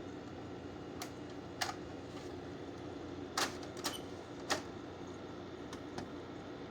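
A 2018 GE (Haier) 6,000 BTU wall air conditioner running with a steady hum, while about seven sharp clicks sound at uneven intervals, the loudest about three and a half and four and a half seconds in.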